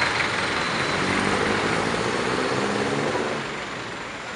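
City street traffic noise with a vehicle engine running close by, a low hum of engine tones in the middle, then easing off about three and a half seconds in.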